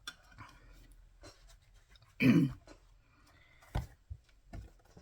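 A woman who is losing her voice clears her throat once, about two seconds in. A sharp knock follows a second and a half later, with faint rustling and small clicks around it.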